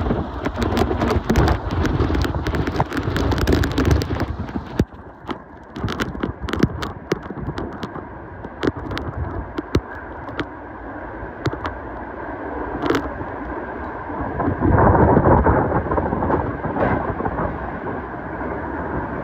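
Hurricane eyewall wind ripping past at full force, rumbling on the microphone, with wind-driven rain and flying debris striking in many sharp ticks and knocks. The gusts are strongest in the first few seconds and again about fifteen seconds in, with a lull between.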